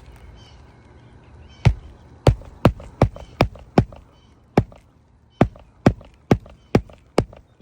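Hammer driving a roofing nail through a new asphalt shingle: about a dozen sharp strikes, two to three a second, with a short pause after the first six.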